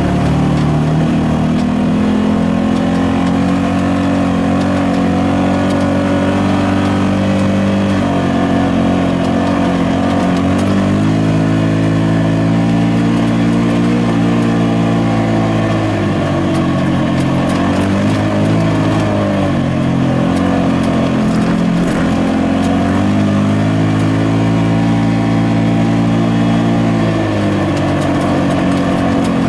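Side-by-side UTV engine running while driving a dirt trail, heard from on board the vehicle. Its pitch drops and climbs several times as the throttle changes, notably around 8, 16 to 20, and 27 seconds in.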